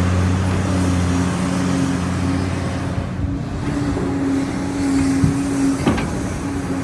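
Mini bulldozer's diesel engine running steadily under load as it pushes soil, with two short clunks about five and six seconds in.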